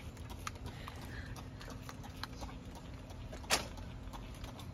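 Hand-held plastic spray bottle squirting water: one short spritz about three and a half seconds in, with a few faint clicks before it.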